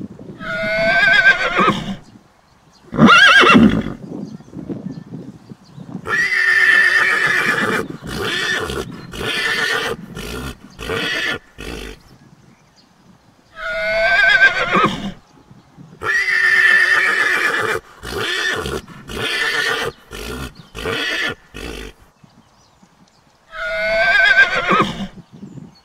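A foal whinnying again and again: high, quavering calls of one to two seconds each, some in quick runs, separated by short silences, with the same call recurring several times.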